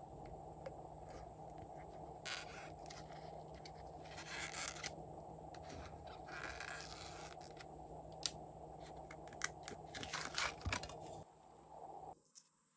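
Glossy slime being handled and mixed by hand, giving off bursts of sticky crackling and sharp clicks over a steady low background hum. The sound drops away to near silence near the end.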